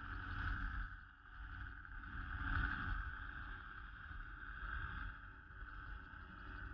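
Muffled, steady drone of a gyrocopter in flight, with an uneven low rumble of wind buffeting the microphone.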